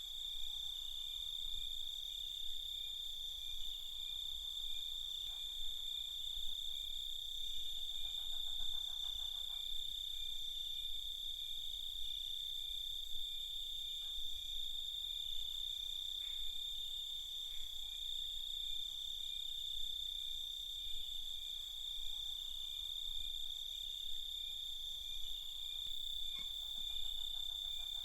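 Crickets chirping at night: a steady, continuous high trill with fainter pulsing chirps beneath it. A lower, rapid trill joins briefly twice, about eight seconds in and near the end.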